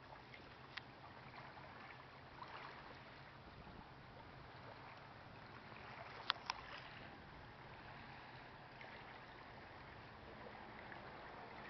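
Faint lakeshore ambience of gentle water lapping, an even soft wash, with two sharp clicks close together a little past the middle.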